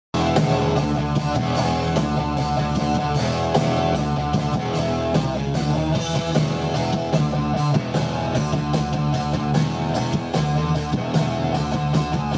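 Live rock band playing: electric guitars over a steady drum-kit beat.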